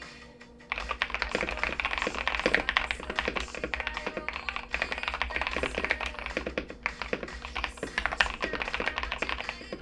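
Fast typing on a KBD67 Lite R4 mechanical keyboard with lubed TTC Carrot linear switches, GMK Botanical clone keycaps and a bandaid mod: a quick, uneven run of key clicks that starts about a second in. Background music plays under the typing.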